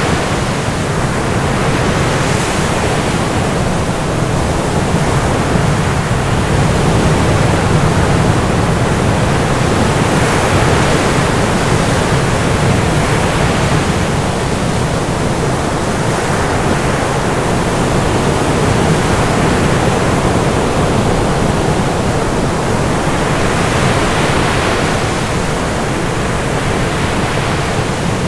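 A dense, steady rushing noise, full from low to high, that slowly swells and eases every several seconds, much like surf or a waterfall.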